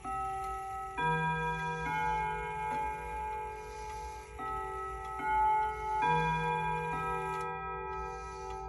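Gazo Torrey Pines wall clock's chime playing a melody of ringing notes, about one a second, in two phrases of four notes with a short pause between them. The pendulum's tick-tock runs underneath.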